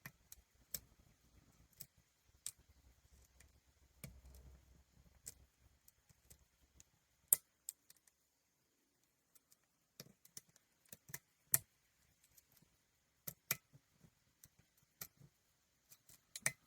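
Lock pick and tension wrench clicking and scraping in a challenge lock's keyway as pins are picked: faint, irregular small clicks with a short lull in the middle.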